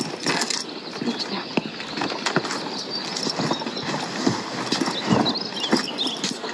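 Hooves of a pack mule and saddled horses shifting and stepping on pavement, giving irregular clip-clop knocks, mixed with the rustle and bump of leather pack bags being adjusted on the mule.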